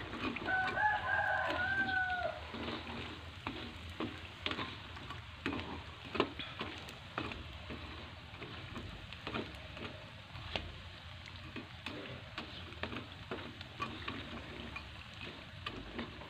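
Rempeyek crackers shallow-frying in a little oil in a wok, sizzling steadily, with a metal spatula scraping and tapping against the wok as they are turned. A rooster crows once, about half a second in, for around two seconds.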